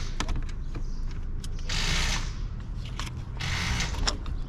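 Hand ratchet with a socket clicking as it is swung on a motorcycle frame-slider bolt, in three short bursts about a second and a half apart with single clicks between, over a steady low rumble.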